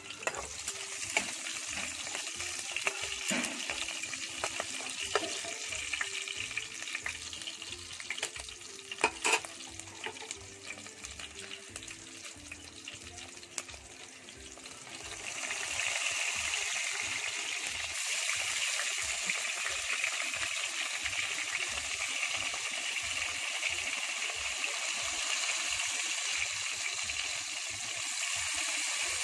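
Hot oil sizzling in a pan while curry leaves and green chillies are stirred through it with a steel ladle, with a few sharp clicks and knocks. About fifteen seconds in, stuffed brinjals go into the oil and the sizzling becomes louder and steadier.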